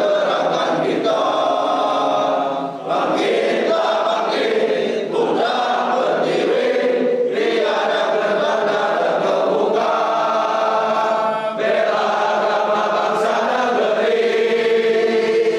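A large group of men singing a song together, phrase after phrase with short breaths between lines.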